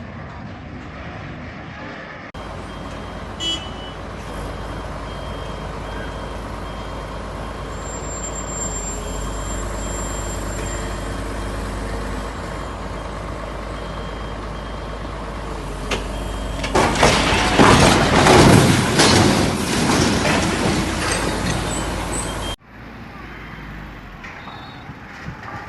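A heavy vehicle's engine running with a steady low rumble. About two-thirds of the way through, a much louder noisy rush of several seconds breaks in, then it all cuts off abruptly.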